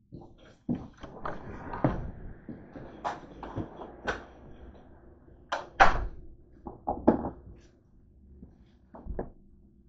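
Apartment door with a lever handle being opened and shut: a run of clicks and knocks from the handle and latch, the loudest knock about six seconds in, over a faint steady hum.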